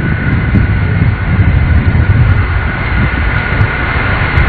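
Jet engines of NASA's Boeing 747 Shuttle Carrier Aircraft running as it rolls along the runway after landing: a loud, steady low rumble with a steady high whine on top.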